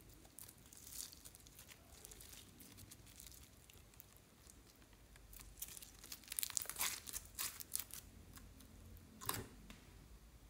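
Orange slime full of small foam beads being stretched and squeezed by hand, giving quiet, irregular crackling clicks and sticky tearing sounds. The crackles come thickest about six to eight seconds in, with one more about nine seconds in.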